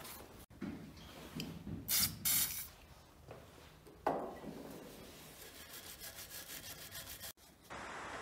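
Cloth rag rubbing up and down an old grease gun's steel plunger rod, wiping off grime in uneven strokes, with a few sharper scrapes and a quick run of short strokes near the end.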